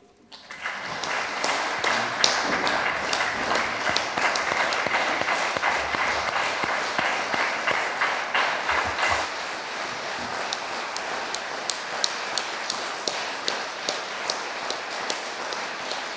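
A small group of people applauding. The clapping is dense at first, then thins out after about nine seconds to fewer, separate claps.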